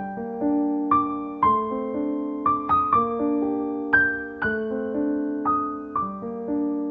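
Background music: slow, gentle solo piano, single notes and chords struck about one or two a second and left to ring.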